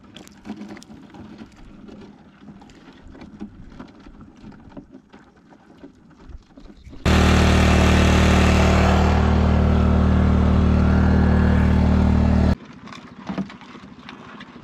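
A loud engine running steadily. It starts abruptly about seven seconds in and cuts off just as abruptly after about five seconds. Before it there are only faint scattered clicks.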